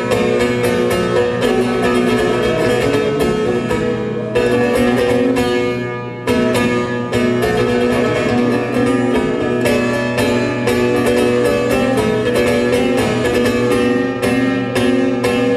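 Bağlama (long-necked Turkish saz) played solo as a run of quick plucked notes. About four seconds in, one note is left ringing and fades for nearly two seconds before the fast picking starts again.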